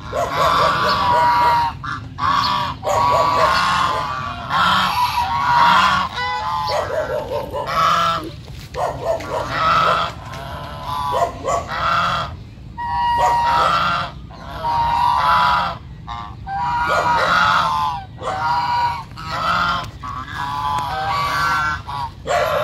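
Flock of white domestic geese honking loudly. Many calls overlap in bouts of about a second, with short breaks between them.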